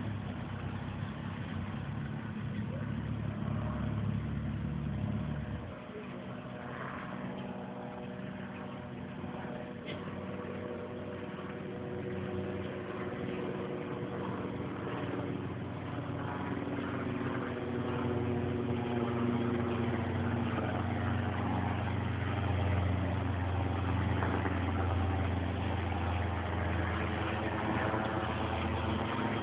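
Diesel engine of an articulated lorry running at low speed as it wades slowly through deep flood water. Its low rumble drops about six seconds in, then grows steadily louder as the lorry comes closer.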